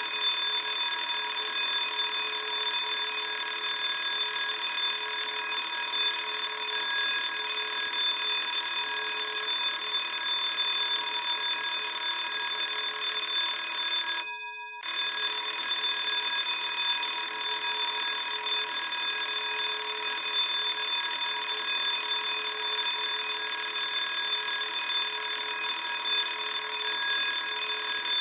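Classic electric school bell ringing continuously and steadily. It cuts out for under a second about halfway through, then rings again.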